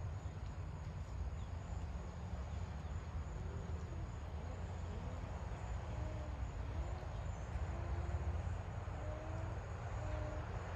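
Outdoor ambience: a steady low rumble with a faint, steady, high insect drone. From about three seconds in come scattered faint, short, wavering calls.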